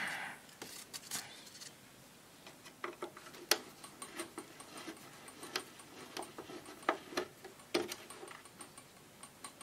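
Screwdriver working out the retaining screws of a valve radio's case: quiet, irregular small clicks and ticks, with a few sharper clicks now and then.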